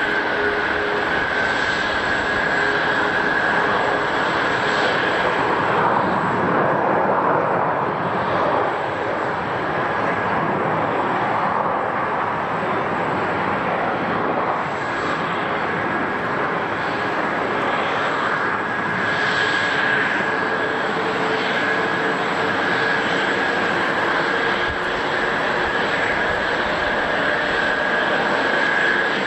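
Jet airliner engines running, a steady rushing noise with a high, steady whine over it.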